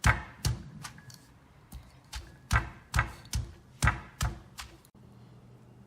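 Pestle pounding lemongrass, galangal, turmeric, garlic and kaffir lime leaf into a paste in a mortar: a series of sharp strikes in two runs with a short pause between, stopping near the end.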